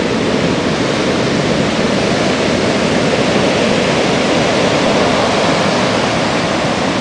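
Heavy storm surf on a beach: a loud, steady rush of breaking waves and white water, at an unusually high tide.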